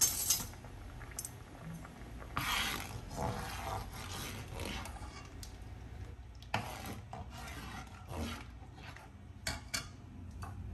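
A spoon scraping the last coconut milk out of a can, with a few light knocks and clinks.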